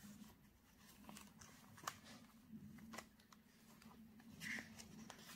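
Near silence, with a few faint ticks and light paper rustles from hands handling the pages of a paper junk journal.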